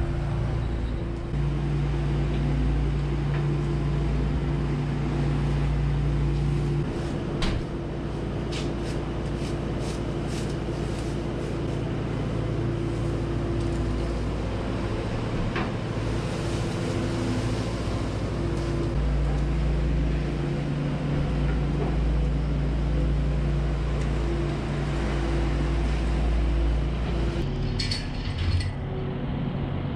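Kubota skid steer's diesel engine running while it moves a round bale, its engine speed shifting up and down several times, with a few light knocks and clanks.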